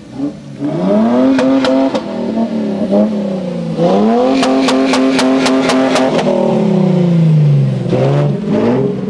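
Toyota Land Cruiser 100-series 4.5-litre straight-six petrol engine revving hard as it drives through soft sand: the revs climb and hold, dip about three seconds in, climb and hold again, then fall off about eight seconds in before picking up near the end. Quick runs of sharp ticks come in over the held revs, about five a second.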